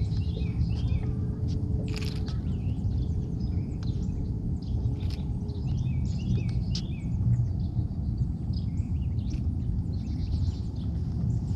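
Small birds chirping again and again over a steady low rumbling outdoor noise, with a faint steady hum that stops about halfway through.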